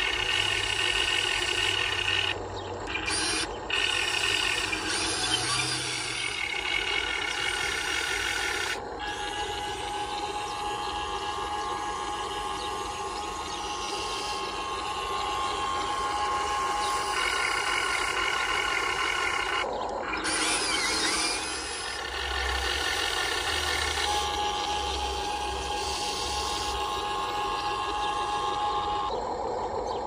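Electric gear motors of a radio-controlled toy excavator whining as it works the boom, swings and drives its tracks, the pitch changing with each movement and stopping for a moment now and then.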